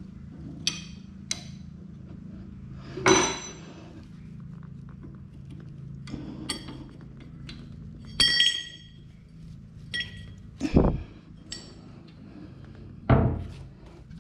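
Flail blades and a hand tool clinking and knocking against the flail mower's rotor as the blades are changed: a string of sharp metal strikes, a few ringing briefly, the loudest about three seconds in and again around eight seconds. A steady low hum runs underneath.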